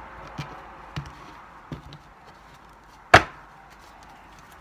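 Tarot cards being handled on a table: a few light taps, then one sharp, loud knock a little after three seconds in.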